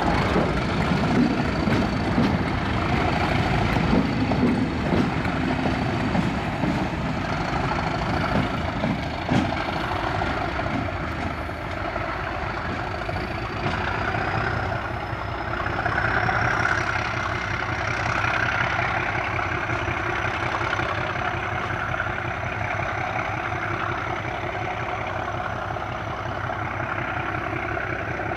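Diesel-hauled train passing at low speed. Wheels knock and clatter over the rail joints as the locomotives pass close during the first ten seconds or so. After that, the steady drone of the leading English Electric Class 37 diesel locomotive working remains as the train draws away, with a thin high whistle that rises slightly about halfway through.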